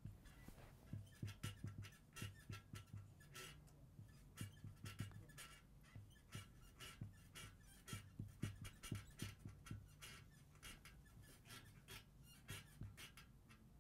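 Marker pen writing on a whiteboard: faint, quick strokes and taps of the pen tip, one after another.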